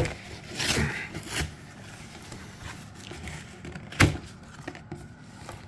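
A cardboard collector box being pulled open by hand: scraping and rustling of cardboard in the first second and a half, then a single sharp knock about four seconds in as the box is handled.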